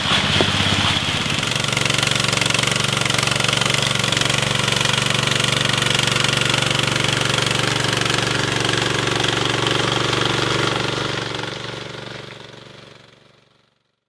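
Walk-behind power trowel's engine running steadily while its spinning blades finish a fresh concrete slab. It fades out over the last few seconds.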